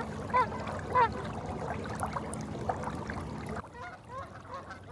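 Geese honking in short, repeated calls, two loud ones within the first second and more near the end, over a steady low hum that stops about three and a half seconds in.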